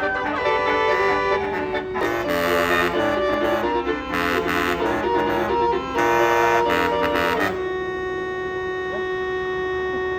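A bus's multi-note 'telolet basuri' air horn playing a melody in quick stepped notes, then holding one long steady note from a little past halfway to the end.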